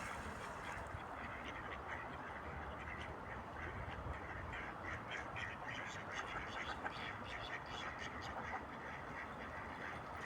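Ducks quacking, a run of short repeated calls that comes thickest in the middle and later part, over a steady background hiss.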